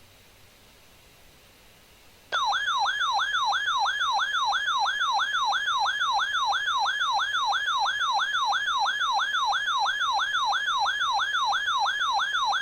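Weather radio alert alarm: a loud electronic siren tone warbling rapidly up and down, about four sweeps a second. It starts suddenly about two seconds in, after faint hiss, and signals an incoming National Weather Service warning.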